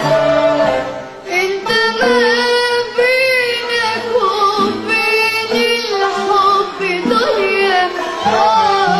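A young girl singing an Arabic song with a live band accompanying her; her voice comes in about a second in, with wavering held notes over the band.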